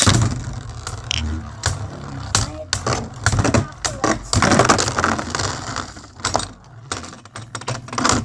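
Beyblade spinning tops clashing and rattling in a plastic stadium during a battle: a rapid, irregular run of sharp clicks and clatters.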